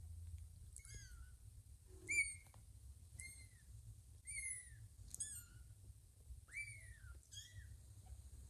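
Two-week-old kittens mewing: short, thin, high-pitched cries about once a second, each rising then falling in pitch, the loudest about two seconds in.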